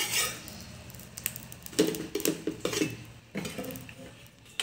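Steel spatula scraping and clattering on a dosa tawa as a cooked egg dosa is lifted off the griddle, in a few separate scrapes: near the start, about two seconds in and again near three and a half seconds.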